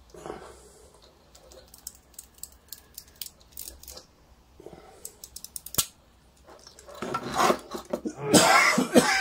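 Small clicks and rattles of a stripped-down Yashica Electro 35 GSN rangefinder being handled, with one sharp click about six seconds in. In the last two seconds a man coughs loudly, the loudest sound here.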